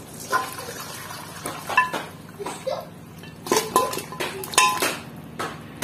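Aluminium pressure cooker tipped over a steel bowl to drain off the boiled mutton and its stock: the metal pot clinks and knocks against the bowl several times, with short metallic ringing, over liquid running into the bowl.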